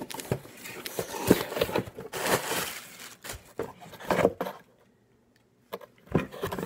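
Cardboard shipping box being opened by hand: flaps scraping and knocking, with crinkly rustling of the packing, in irregular bursts and a short pause about two-thirds of the way through.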